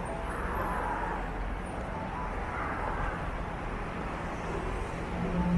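Street traffic noise: a steady wash of passing cars, with a vehicle's low engine hum coming in near the end.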